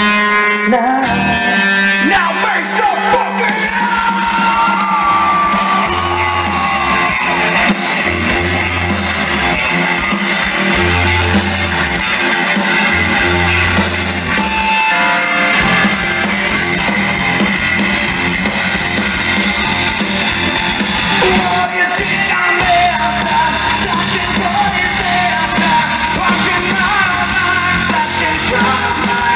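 Hard rock band playing live: electric guitar, bass guitar and drums, with a vocalist singing and yelling over them. The band plays long low bass notes about a third of the way through, and the sound carries the echo of a large hall.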